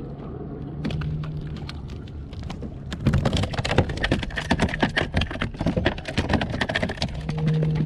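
Water splashing and spattering close by, a dense run of sharp drips and splashes that starts about three seconds in and goes on until near the end.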